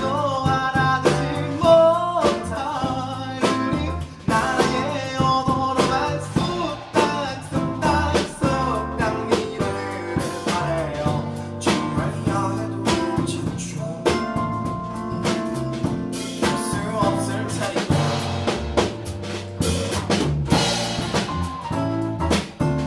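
Live band performing a pop song: a man singing into a microphone over electric bass, acoustic guitar and drums keeping a steady beat.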